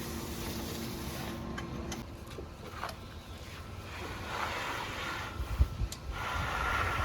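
A steady machine hum that cuts out about two seconds in. It is followed by scattered knocks and scraping, and a steady high whine begins about six seconds in.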